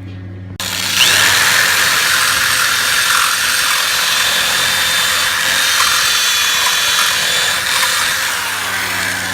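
Power drill starting suddenly about half a second in and running continuously, the bit cutting to enlarge a screw hole in a mounting bracket: a high whine over a loud grinding hiss.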